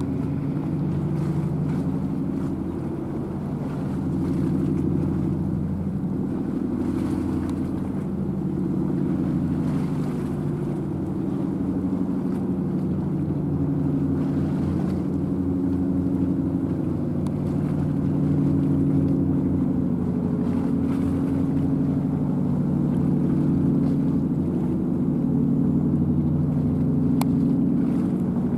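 A boat engine running with a steady low drone. Its tones drift slowly up and down in pitch, over a fast low pulsing.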